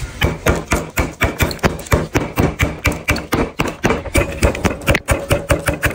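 Kinana chopping knife hacking repeatedly through a plant stalk onto a wooden block: rapid, even chops about four a second.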